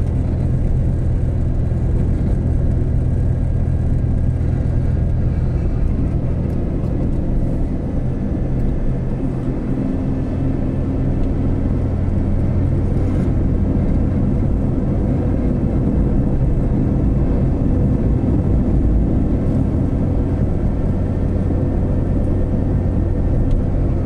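Car engine and tyre noise heard from inside the cabin while driving up a mountain road, a steady low drone.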